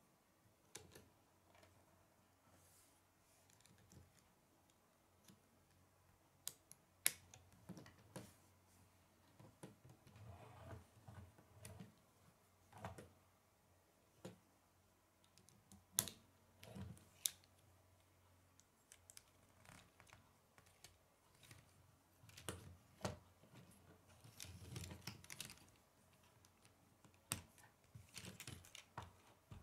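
Plastic K'nex rods and connectors clicking and rattling as they are handled and fitted together by hand: scattered sharp clicks with a few louder snaps, and short spells of rustling handling in between.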